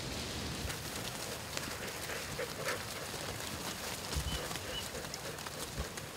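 Open-field ambience: a steady hiss with scattered small ticks and a few faint short bird chirps about two-thirds of the way in.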